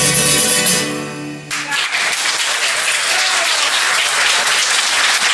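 Classical guitar's final chord ringing, cut off about a second and a half in, followed by an audience applauding.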